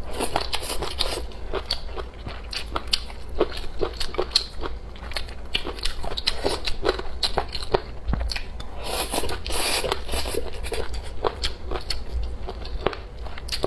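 Close-miked chewing and biting of food: a quick, uneven run of wet clicks and small crunches, with a brief hissing breath or slurp about nine seconds in.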